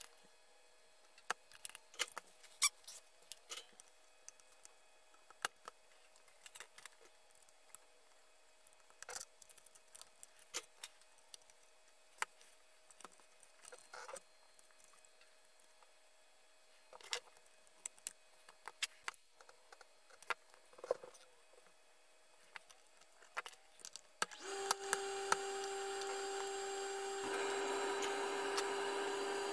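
Scattered light clicks and taps of hands handling wiring, parts and small hand tools inside an open tube tester chassis on the bench. About 24 seconds in, a steady tone with a hiss comes in.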